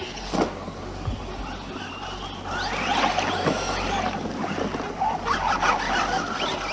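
Radio-controlled cars driving over dirt and dry leaf litter, tyres rustling and crackling through the leaves. The sound grows louder about two and a half seconds in as one car comes close past the microphone.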